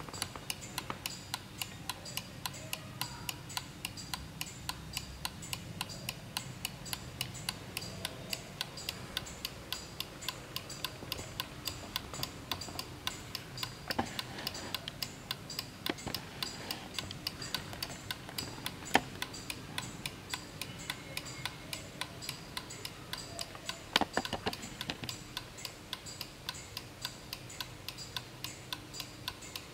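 Vintage Black Forest miniature wall clock ticking fast and evenly, its swinging-girl pendulum figure keeping the beat. A few louder knocks stand out through the middle.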